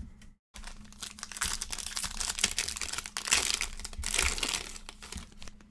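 The gold foil wrapper of a Panini Select football card pack being torn open and crinkled by hand: a dense crackling that grows louder, then fades near the end.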